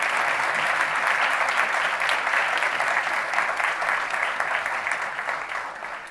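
A large audience applauding, many hands clapping together, which begins to fade near the end.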